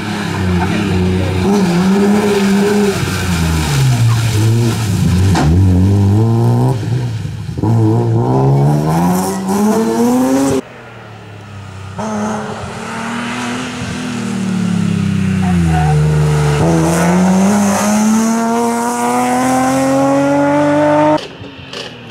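Rally car engines at stage speed. One car's engine note drops as it slows, then climbs with rising revs as it accelerates away, and a single sharp crack comes about five seconds in. After an abrupt cut about ten seconds in, another car's engine falls in pitch and then rises in one long steady climb as it accelerates hard.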